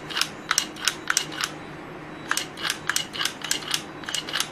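Electronic throttle body of a Mercedes S420, energized on a bench tester: a steady low humming with a run of sharp mechanical clicks at roughly three a second, a short break about a second and a half in, then another run. The repaired unit is running normally, with nothing abnormal in its sound.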